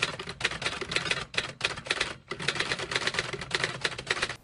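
Rapid typewriter-style key clicks in fast runs with brief pauses, stopping abruptly: a typing sound effect.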